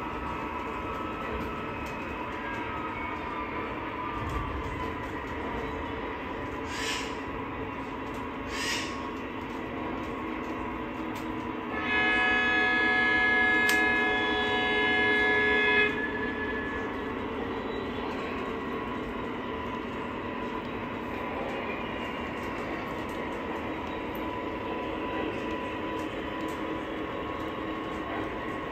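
O scale model diesel trains running on the layout's track with a steady rolling hum. Two short hisses come around seven and nine seconds in. About twelve seconds in, a locomotive's sound system blows a diesel horn for about four seconds, the loudest sound here.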